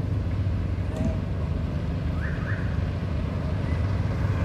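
Steady low outdoor rumble, with a faint click about a second in and two short high chirps just after two seconds.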